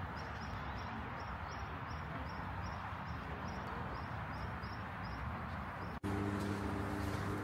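Ride noise of the Salève aerial cable car: a steady rush that cuts off abruptly about six seconds in, followed by a steady low hum.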